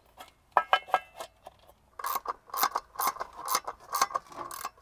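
The plastic end cap clicks onto a pool pump motor with a few sharp clicks. Then its screws are tightened with a hand driver, giving a steady run of clicks, about four a second.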